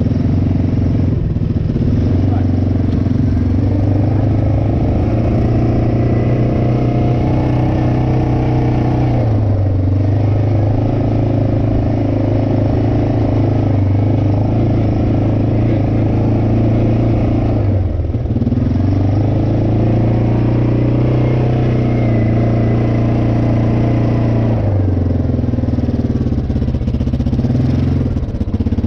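Quad ATV engine heard close up while riding: revs climb and hold steady for several seconds, then ease off and pick up again, about three times.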